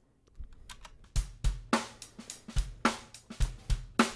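Multitracked acoustic drum kit played back as a mix: kick, snare, hi-hat and cymbals in a steady beat, coming in quietly and playing at full level from about a second in. The overheads and hi-hat have their low end cut by high-pass EQ and the highs boosted, leaving a bright sound with the lows left to the kick.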